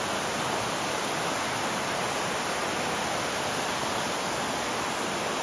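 Shallow river rushing over rocks and stones in small riffles, a steady even rush of water.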